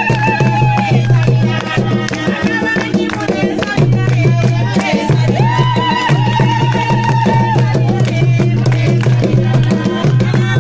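Traditional Zambian song with a steady low drum beat and women singing. A high voice holds long, wavering notes near the start and again midway.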